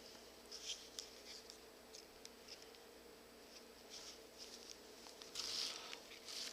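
Hand-sewing leather: short scratchy rasps of waxed thread being drawn through leather and the leather being handled while a knot is tied off, with a longer rasp about five and a half seconds in. A faint steady hum runs underneath.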